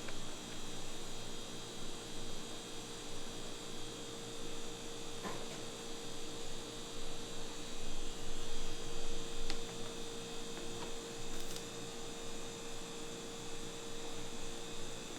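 A steady electrical or machine hum with a constant mid-pitched tone and a higher whine, broken by a few faint clicks.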